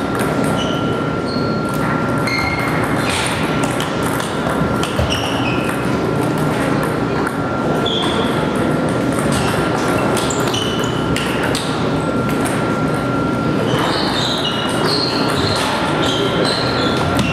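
Table tennis balls clicking off bats and tables at an irregular pace, several rallies overlapping, over a steady background din in a large, echoing hall. A thin steady high whine runs underneath and drops out briefly near the end.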